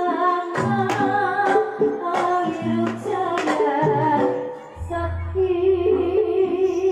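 Javanese gamelan music for a jathilan barongan dance: a female singer sings a wavering melody over regularly struck metallophone notes and drum strikes, played through a sound system. A deep, steady low tone enters about five seconds in.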